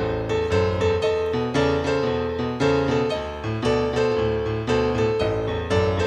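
Background music: piano playing a steady flow of notes, a new note or chord about every half second.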